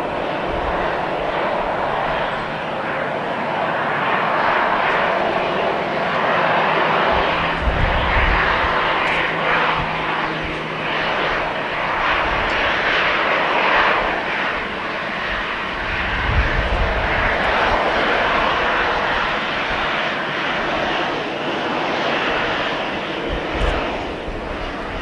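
Boeing 737-800's CFM56-7B turbofan engines running at taxi power as the airliner taxies past: a steady jet rush that swells and eases as it goes by.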